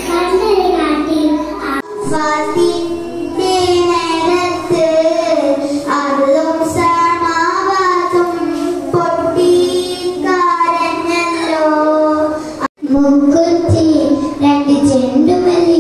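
A young girl singing solo into a microphone, her held notes gliding between pitches. The singing breaks off abruptly about two seconds in and again near the end, each time going on with another child's voice.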